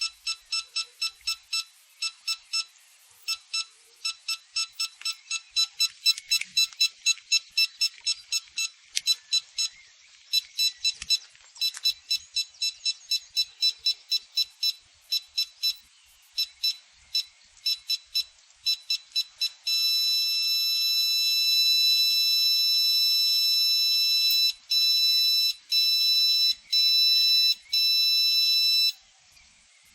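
Electronic countdown beeping from a wireless prop-detonation sound box: short high beeps, about two to three a second, then a continuous high-pitched tone for about nine seconds. The tone breaks briefly a few times and cuts off just before the end, the signal that the prop is about to detonate.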